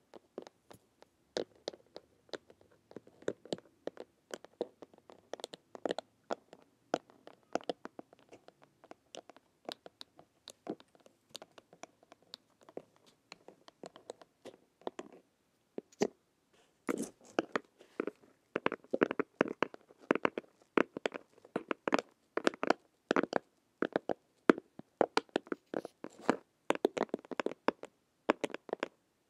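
Long fingernails tapping on a padded, leather-like surface: scattered single taps at first, then quicker flurries of taps from a little past halfway.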